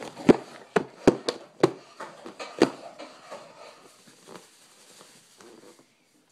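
A series of sharp knocks and taps, about six in the first three seconds, then a few fainter ones.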